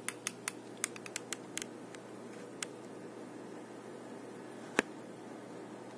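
Light clicks and taps: a quick run of them in the first couple of seconds, one more a little later, and a sharper, louder click near the end. They sit over a faint steady hiss and hum.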